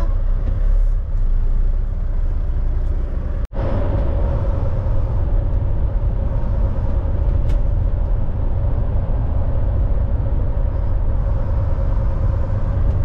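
Steady low engine rumble and road noise inside a moving semi-truck's cab. The sound cuts out for an instant about three and a half seconds in, and a steady hum runs on afterwards.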